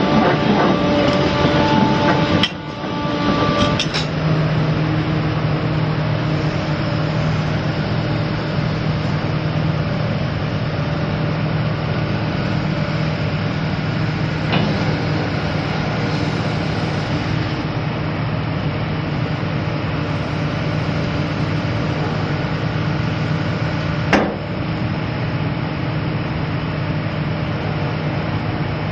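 Link-Belt 330LX excavator's Isuzu six-cylinder turbo diesel running steadily with a constant low hum. The sound drops and changes briefly about two and a half seconds in, and there is one sharp knock late on.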